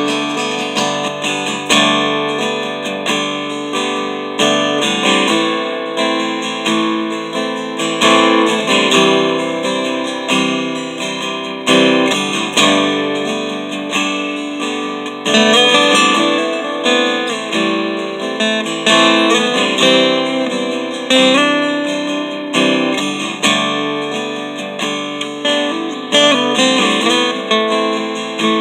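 Seagull steel-string acoustic guitar being strummed and picked in a continuous chordal demo, on a new set of coated Cleartone 12–53 strings with the action set very low.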